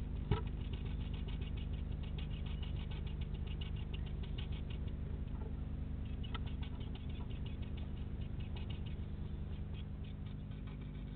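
Great tits moving about inside a nest box: rapid light tapping and scratching on the box, dense for the first few seconds and then in scattered bursts, with one sharp knock just after the start.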